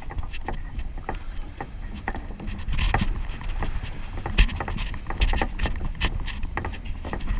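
Wind rumbling on the microphone, with irregular clicks and knocks from a spinning reel being cranked to bring in a hooked tailor, one knock about four and a half seconds in standing out.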